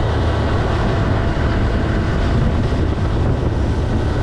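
A boat's motor running steadily under way: a loud, even low drone with rushing noise.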